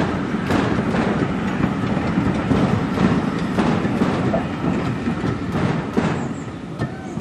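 Railway passenger carriages rolling past, their wheels clicking and clattering irregularly over the rail joints. The sound fades near the end as the last carriage draws away.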